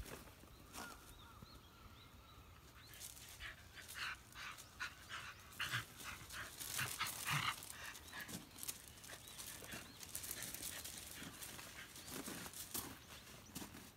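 A beagle-mix dog scuffling on gravel while tangled in a thick rope: an irregular run of crunches and scrapes from its paws and the dragging rope, busiest and loudest about four to eight seconds in.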